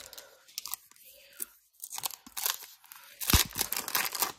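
Foil trading-card pack wrapper crinkling and being torn open, with irregular crackling that is loudest about three seconds in, where there is one sharp snap.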